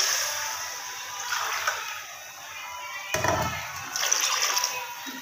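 Water poured from a steel glass into a pot of potato-and-chicken curry cooking on a gas stove, splashing and hissing, then dying down over about two seconds. A single knock about three seconds in.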